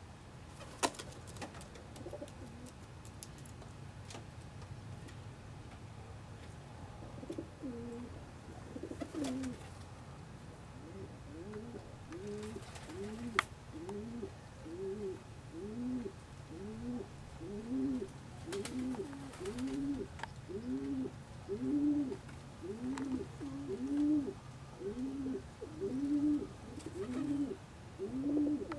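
Domestic pigeons cooing: a steady run of low coos, about one a second, growing louder toward the end. There are a couple of sharp clicks, the loudest near the start.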